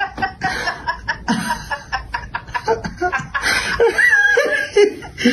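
A woman chuckling and laughing over a phone video call.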